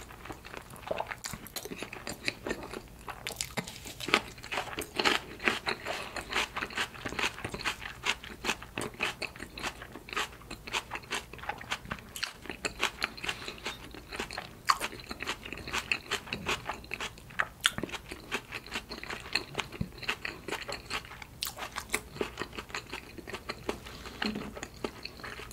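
A person chewing salmon sushi close to the microphone, ASMR-style: a dense, steady run of small wet clicks and smacks from the mouth.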